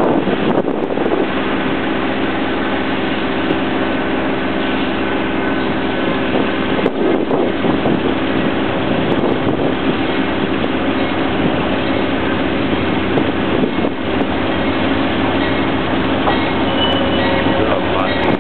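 Steady diesel engine drone of an approaching Amtrak GE Genesis passenger locomotive, with a faint high squeal near the end.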